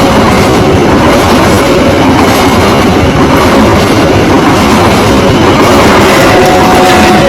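Passenger train passing close at speed: a loud, steady rush of wheel and rail noise. Near the end a locomotive horn tone begins to sound.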